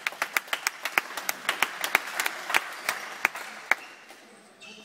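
Spectators clapping: sharp claps close by, about four to five a second, over fainter applause, dying away near the end.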